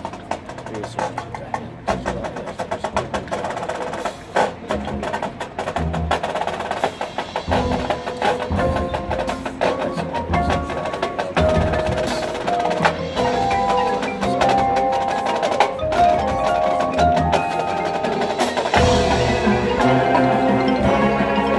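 Marching band field-show music carried by the percussion: dense, sharp rhythmic strikes from the drums and the front ensemble. About halfway in, the front ensemble's mallet instruments come in with ringing pitched notes, and the music grows louder toward the end.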